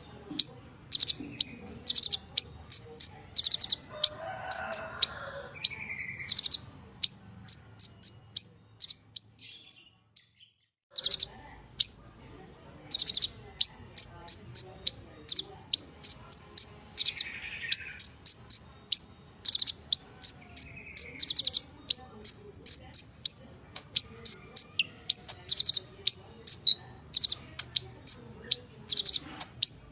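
Purple-throated sunbird (kolibri ninja) singing a rapid, continuous run of sharp, high chirps and tweets, several a second, with a brief pause about ten seconds in.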